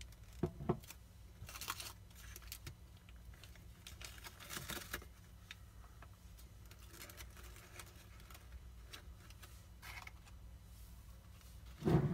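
Paper coffee filter crinkling and rustling in short scattered bursts as it is handled on a jar, its rubber band taken off and the filter lifted away. A louder knock comes near the end.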